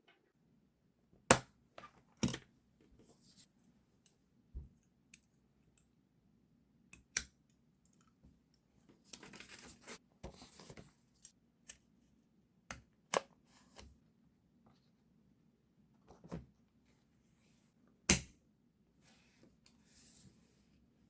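Stationery and paper handled on a desk while decorating a diary: scattered sharp clicks and taps, with a scratchy rustle of paper from about nine to eleven seconds in and again near the end.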